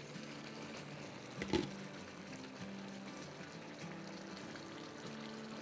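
Chicken and sauce simmering in a wok, a faint steady bubbling, with a single knock about a second and a half in, under soft background music.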